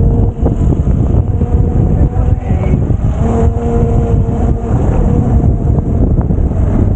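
Wind buffeting the microphone of a moving e-bike rider, with a steady electric-motor whine coming in about three seconds in and fading a second and a half later.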